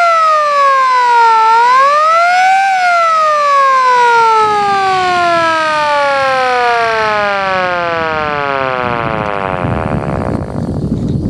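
Edwards Model F electric fire siren winding: its wail falls, rises once more, then drops in one long falling tone over about seven seconds as the rotor coasts down, fading out near the end.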